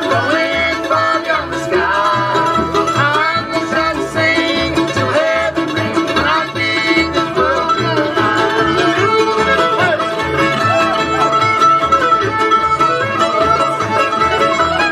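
Old-time string band playing an instrumental passage: fiddle lines over acoustic guitar and upright bass keeping a steady beat.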